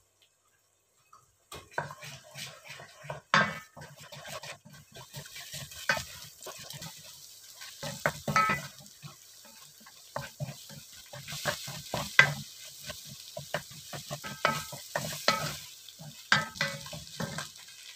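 Wooden spatula stirring and scraping scrambling eggs in a stainless steel pot, with irregular knocks against the pot's side, over a light sizzle of frying. It starts about a second and a half in.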